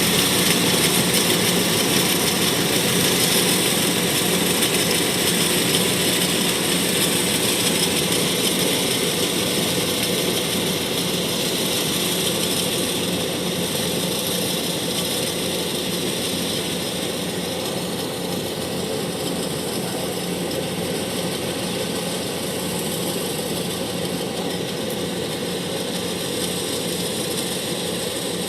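Kubota DC-105X combine harvester running steadily, its engine and harvesting machinery making a constant mechanical drone that gradually gets a little quieter.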